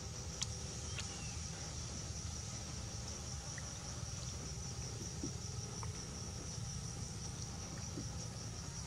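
Insects chirring steadily in one high, unbroken tone, over a low steady rumble, with a couple of faint clicks about a second in.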